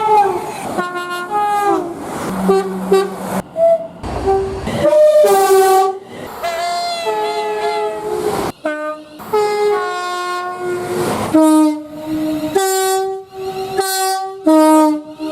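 Train horns sounding in a quick series of short clips cut back to back. Each blast is a chord of several notes, and each clip stops abruptly where the next begins. Some of the blasts slide down in pitch.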